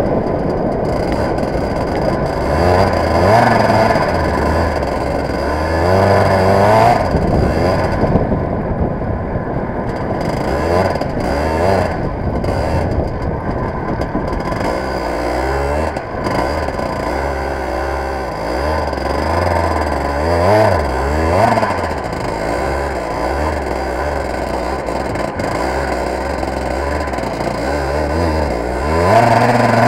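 Racing kart's engine heard from on board, running hard at race speed, its pitch rising and falling again and again as the driver accelerates and lifts off through the corners.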